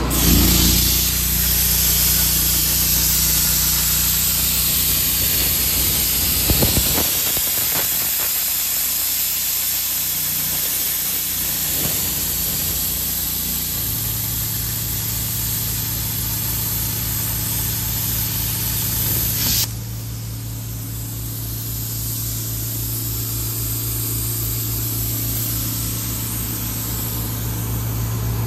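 Hypertherm Powermax85 plasma cutter cutting steel plate on a CNC table: a steady hiss of the plasma arc and air that drops off sharply about 20 seconds in as the cut ends, leaving a fainter hiss. An engine runs steadily underneath.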